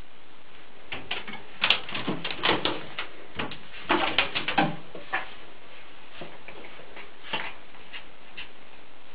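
A pet playing in a bathtub: a quick run of taps, knocks and scrapes for a few seconds, then a few scattered taps.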